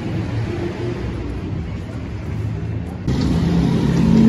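Road traffic rumbling steadily; about three seconds in it gets louder, and a vehicle engine's steady drone comes up toward the end.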